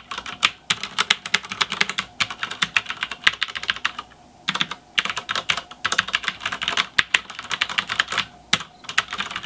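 Fast typing on a Ducky DK9008 G2 Pro mechanical keyboard with Cherry MX Brown switches: a dense run of key clacks from tactile, non-clicky switches, with a short pause about four seconds in.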